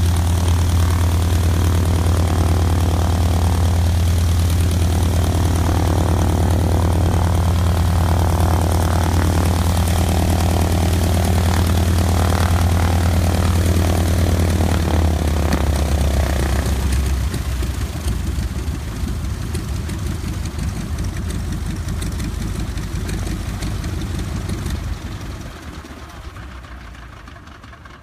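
Beechcraft Staggerwing's radial engine idling with a deep, steady drone, then shut down a little past halfway so the sound dies away. A fainter rushing noise carries on after the engine stops.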